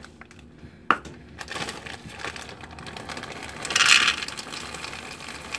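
Semi-sweet chocolate chips being tipped and poured with a plastic measuring cup, the plastic chip bag crinkling and rustling, loudest about four seconds in. A single sharp knock about a second in.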